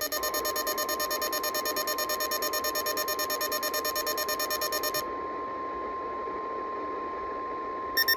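NOAA Weather Radio's 1050 Hz warning alarm tone, one steady pure tone held for about nine seconds, signalling that a warning message follows. For the first five seconds a fast-pulsing electronic alert beep sounds over it, and the beeping starts again near the end.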